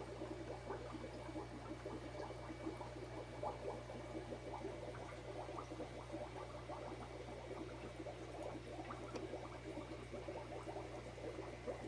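Steady bubbling and trickling of aquarium water over a low, steady hum.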